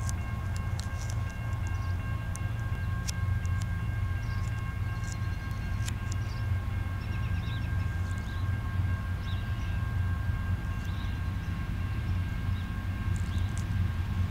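Steady low rumble of a slowly approaching diesel-hauled freight train, with a faint, steady high-pitched squeal of several tones, typical of wheel flanges grinding on a curve.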